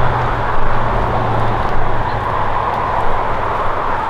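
Steady rushing outdoor background noise, with a low hum that fades out in the first second or so.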